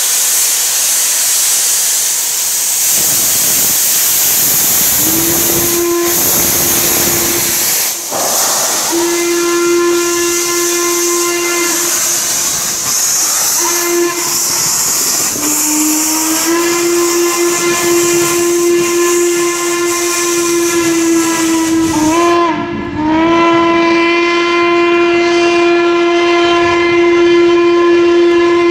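Steam locomotive whistle of C&O 2-6-6-2 #1309 blowing several short and long blasts over loud hissing steam venting around the locomotive's running gear. About two-thirds of the way through, the hiss stops abruptly and the whistle carries on in one long blast heard from farther off.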